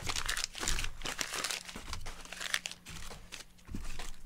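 Crumpled newspaper packing being grabbed and crinkled by hand as it is pulled out of a cardboard box, in irregular rustles.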